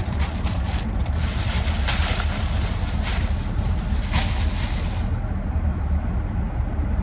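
Shopping bags rustling and crinkling as items are packed away, stopping about five seconds in, over a steady low rumble.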